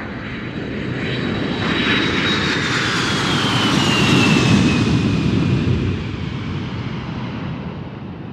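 Airplane flyby sound effect: engine noise swells, peaks about halfway through and fades away, with a high whine falling in pitch as the plane passes.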